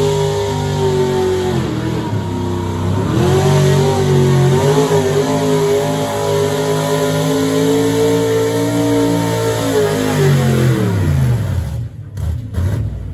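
Super stock gas pulling truck, a 1970s Ford pickup, running its engine at high revs under full load as it drags a weight-transfer sled. The revs dip and recover about two to three seconds in, hold high for several seconds, then fall away as the pull ends near the end.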